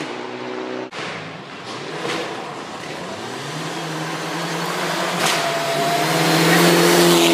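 Rally car approaching flat out on a gravel stage, its engine note held high and growing steadily louder as it nears, over the rush of tyres on gravel. There is a sudden break about a second in.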